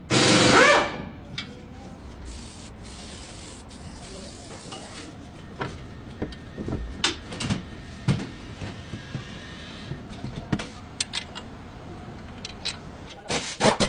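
A loud, short burst of noise right at the start, then rubbing and scraping sounds with scattered light clicks and knocks, a few louder knocks near the end.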